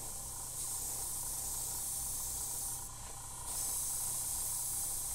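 Airbrush spraying paint in a steady hiss, easing off for a moment a little under three seconds in and then spraying again, over a low hum.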